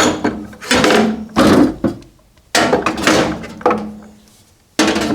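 Heavy hand tools such as wrenches being handled and laid into a toolbox drawer: a series of about five clunks and rattles, each trailing off with a brief ring.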